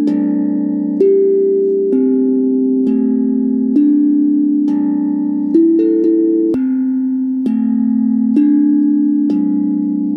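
Improvised instrumental music: a ringing, bell-like chord is struck about once a second, each one sustaining until the next as the notes shift.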